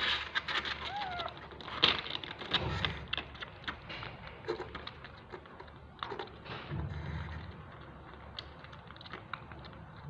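Kittens mewing, one short call rising and falling about a second in, over scattered small clicks and knocks. There are two dull low thumps, one about two and a half seconds in and one near seven seconds.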